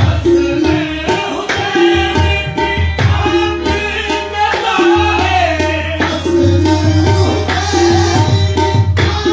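Live qawwali music: singing over harmoniums with a tabla keeping a steady, evenly repeating rhythm.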